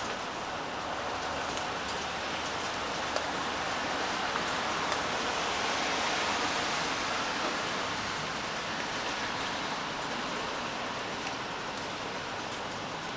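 Steady rain falling, an even hiss with a few faint drops ticking. Around the middle it swells louder and brighter, then fades back over a few seconds.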